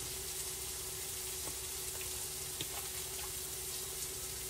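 Sliced peppers, onions and mushrooms sizzling steadily in butter in a frying pan, with a few faint clicks about midway.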